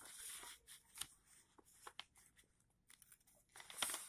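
Near silence: quiet room tone with a few faint mouth clicks and a short breath near the end.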